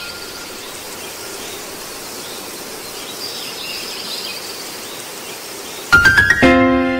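An even hiss with faint high chirping, then about six seconds in a quick run of rising notes opens sustained background music.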